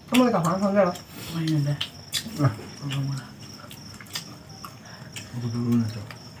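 Crickets chirping as a steady, high, even background tone. A person's voice exclaims briefly at the start, low murmured voices come now and then, and dishes click lightly.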